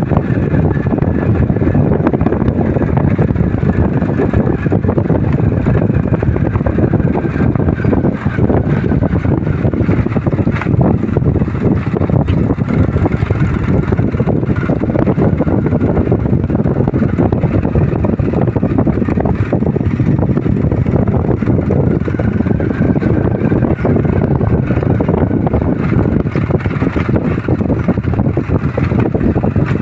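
Steady wind rumble on the microphone over a vehicle's engine running evenly, recorded from the moving vehicle.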